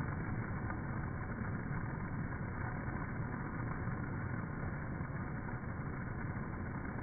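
Slowed-down sound of a shower of ping pong balls landing and bouncing on a wooden gym floor, heard as a low, steady, muffled rumble with no high frequencies.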